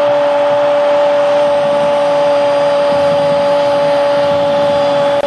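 Stadium crowd cheering a goal, with one long steady pitched tone held over the cheering.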